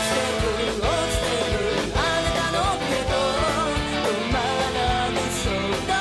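Pop-rock song playing, a woman singing a melody over a band with a steady drumbeat.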